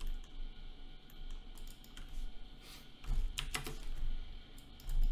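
Computer keyboard typing: scattered separate keystrokes and clicks as dimension values are entered, over a low background hum.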